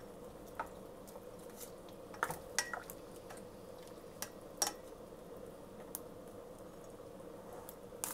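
A cooking spoon knocking and scraping against a stainless steel pot as chicken wings are stirred in soy sauce and water: about seven light, separate clicks over a faint steady hum.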